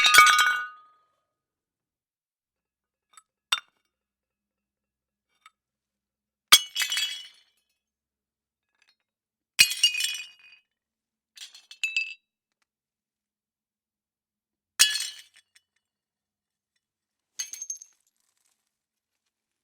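Plates smashing one at a time, a few seconds apart: each is a sharp crash followed by a brief clatter of shards clinking. The first crash is the loudest, and a couple of the later ones are smaller clinks.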